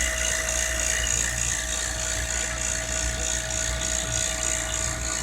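An AC vacuum pump running steadily with a constant whine and hum as it evacuates a 1983 Cadillac Fleetwood's air-conditioning lines.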